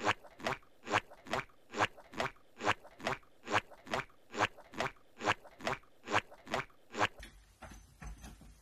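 Cartoon footstep sound effect, the SpongeBob SquarePants walking sound, played as a run of even steps about two and a half a second. It stops about seven seconds in.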